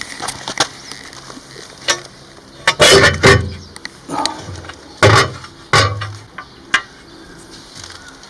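A handful of irregular knocks and thumps, the loudest a longer rough burst about three seconds in, over a low background.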